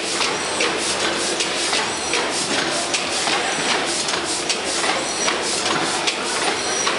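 600 hp Snow gas engine running slowly: a steady mechanical clatter with sharp clicks and knocks about twice a second, and a short high squeak about every second and a half.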